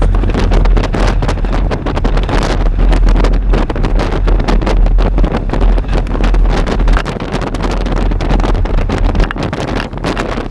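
Strong wind buffeting the microphone: a loud, gusty rushing with a heavy low rumble that swells and eases.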